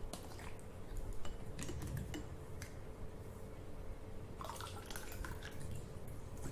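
Someone drinking plain water in gulps, with scattered small clicks and clinks of the drinking vessel.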